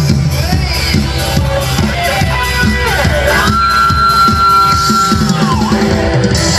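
Loud amplified kecimol music, the Sasak street-band style: a steady drum beat with a lead melody that slides and bends in pitch.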